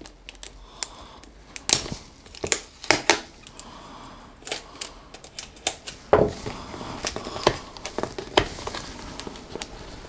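Seal stickers being picked at and peeled off a cardboard product box: irregular crinkling and tearing with sharp scratchy clicks.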